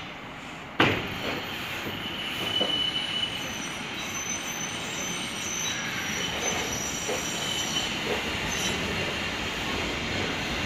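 A rail vehicle running on the track, its wheels squealing in a thin, high, steady whine over the rumble. The sound cuts in abruptly about a second in.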